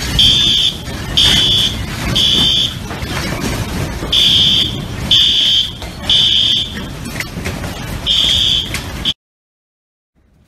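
Electronic alarm beeping at a single high pitch in groups of three half-second beeps, with a longer pause between groups: the temporal-three pattern of a fire or smoke alarm. A steady rush of rattling noise runs underneath. It all cuts off suddenly about nine seconds in.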